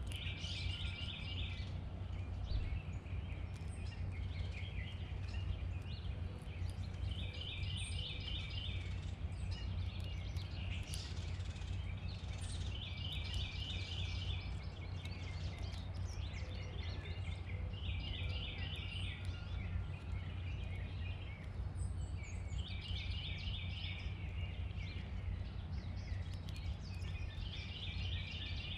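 A songbird repeats a short phrase of rapid high notes about every five seconds, over a steady low background rumble.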